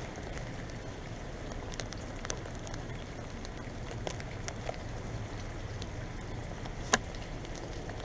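Steady low hum and hiss from a 2001 Comfort Range 2-ton heat pump outdoor unit standing with its fan stopped and its coils steaming, which the owner thinks has just come out of defrost. Scattered faint drip-like ticks, and one sharper click about seven seconds in.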